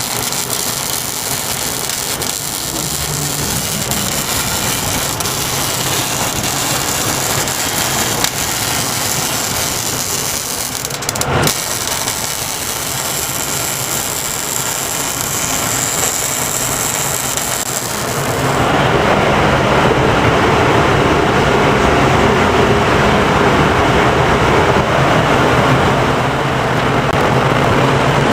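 Electric arc welding on a steel vise and its table: a steady hissing noise with a low hum under it, getting louder and fuller about two-thirds of the way through.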